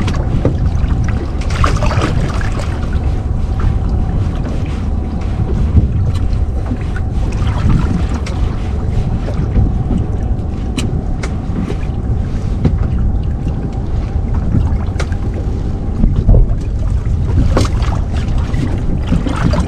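Steady low rumble aboard a small fishing boat, with a thin steady hum and scattered light clicks and knocks.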